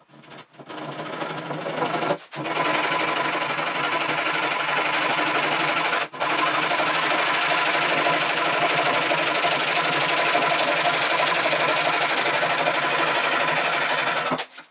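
Hand saw cutting through a board at four times speed, so the strokes run together into a fast, continuous rasping buzz. It breaks off briefly twice, about two and six seconds in.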